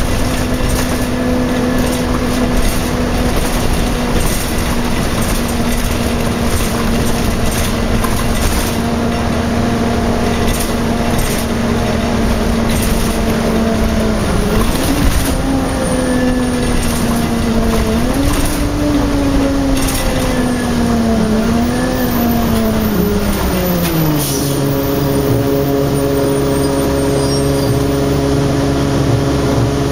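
Orion V transit bus's Detroit Diesel Series 50 engine with its Allison B400R automatic transmission, heard from inside the passenger cabin: a steady running note for about the first half, then the pitch rises and falls several times as the bus changes speed, settling to a lower steady note for the last few seconds.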